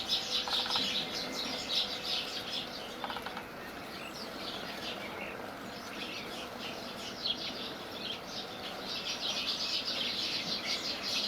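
A flock of small birds chirping in a dense, continuous chatter, loudest near the start and again toward the end.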